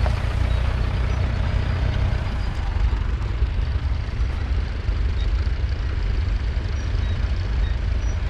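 International Harvester B275's 2.3-litre four-cylinder diesel engine running steadily while it pulls a two-furrow trailed plough. About two seconds in, the low drone thins slightly.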